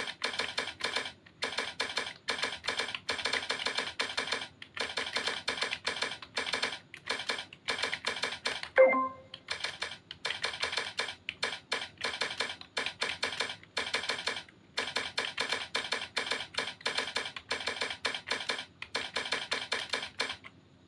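Fast typing on a laptop keyboard: rapid runs of key clicks separated by brief pauses, with an occasional louder key. Near the middle a short pitched ding sounds once, the loudest thing heard, and the typing stops just before the end.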